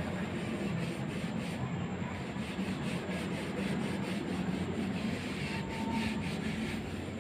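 Sponge and cloth scrubbing a plastic mug coated in baking soda and dish soap, with quick, steady back-and-forth rubbing strokes to lift water-stain marks.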